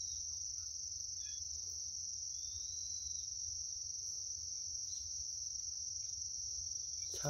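Steady, high-pitched insect chorus that drones on without a break, over a low steady rumble.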